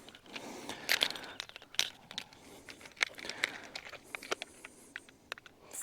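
Scattered light clicks and rustling as a freshly landed fish and fishing gear are handled.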